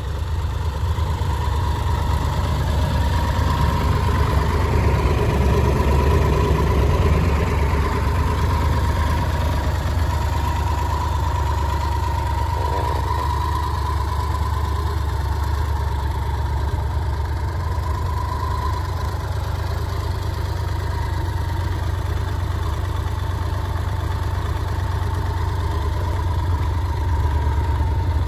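Triumph Tiger 1200 GT Pro's three-cylinder engine idling steadily.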